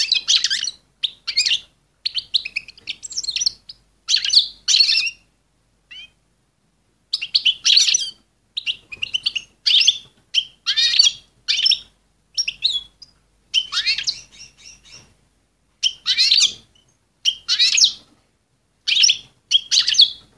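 Female European goldfinch in breeding condition calling, in short bursts of rapid, high-pitched twittering chirps with brief pauses between them. These are the calls that breeders play to cock goldfinches to bring them into breeding condition quickly.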